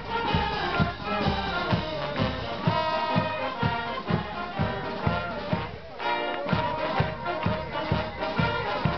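Brass street band playing a tune: trumpets, saxophones and a sousaphone in held, stacked notes over a steady low beat of about two a second, with a brief lull about six seconds in.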